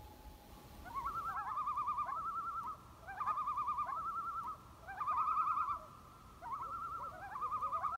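Common loon giving its tremolo call: a rapid, quavering, laughing phrase repeated four times, each phrase about a second and a half long and opening with a short rising note.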